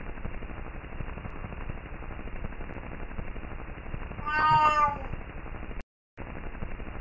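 Hiss and crackle of an old 1950s film soundtrack. About four seconds in, a single short high call like a cat's meow sounds, its pitch falling slightly. Near six seconds the sound drops out completely for a moment.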